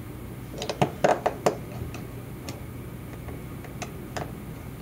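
Small sharp clicks and taps of a small screwdriver and a tiny screw against the metal plate inside an iPhone 4S while the screw is fitted: a quick cluster of clicks in the first second and a half, then a few scattered ones.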